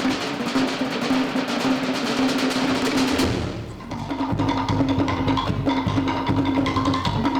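Cook Islands drum ensemble playing a fast, dense beat with wooden, wood-block-like strikes. About three and a half seconds in it dips briefly, then gives way to a slower rhythm with deep drum strokes.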